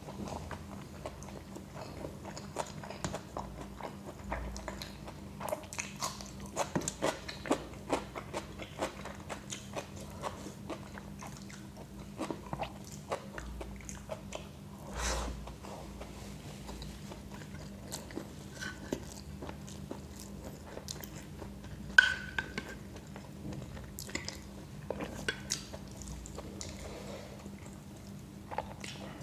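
Close-miked eating sounds: chewing with frequent short, irregular crunches and mouth clicks as rice with salad is eaten, over a steady low hum. One sharp, louder click stands out about 22 seconds in.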